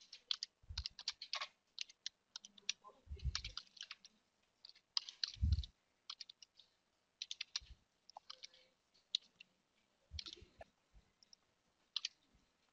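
Computer keyboard typing: irregular runs of key clicks, with a few heavier, deeper key strikes among them.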